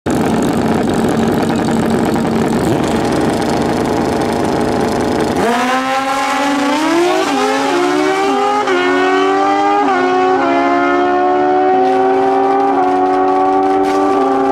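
Drag racing motorcycle engine: a dense, rough engine noise at first, then about five seconds in it launches, its pitch climbing and dipping slightly at each of several quick upshifts as it accelerates.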